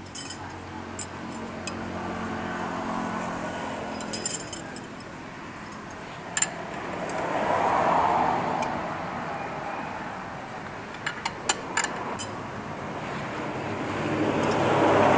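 Road traffic passing, swelling and fading a few times, with sharp metal clinks of hand tools working on the quad bike's chain adjuster nuts, including a quick run of several clinks later on.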